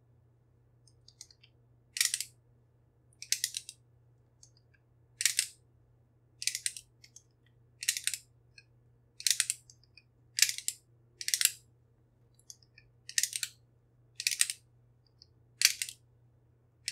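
Squeeze-handled metal batter scoop working as batter is portioned into a metal muffin tin: about a dozen short, sharp scraping clicks, roughly one a second, as the handle is squeezed and the release blade sweeps the cup.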